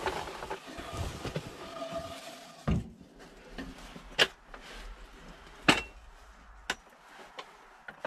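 A snow shovel scraping over a dirt floor, ending in a dull thump, then three sharp knocks, the middle one the loudest, as a wooden post is handled into place.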